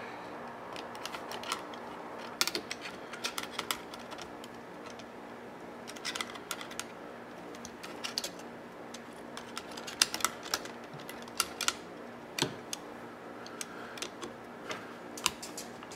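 Irregular small clicks and taps of plastic and metal parts being handled and snapped into place while a cassette deck's tape transport is reassembled by hand, over a faint steady hum.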